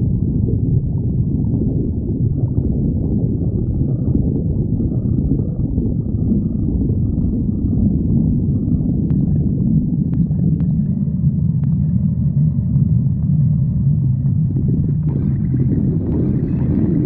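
Stomach growling: a continuous low, gurgling rumble, with a few faint clicks around the middle.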